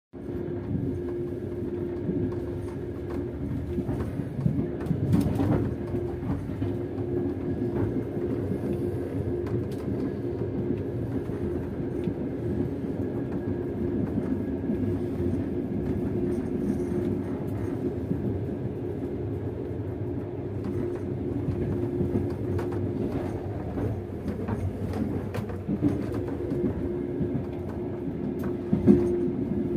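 Passenger train carriage running, heard from inside a compartment: a steady rumble and clatter of the wheels on the rails over a constant low hum, with a few louder knocks about five seconds in and near the end.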